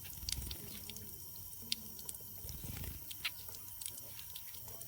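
Light water drips and small splashes, scattered and irregular, as a young bird bathes in shallow water.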